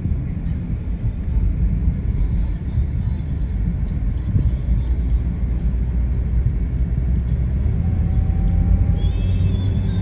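Steady low road and engine rumble inside a moving taxi's cabin, with nostalgic songs playing faintly from the car's stereo.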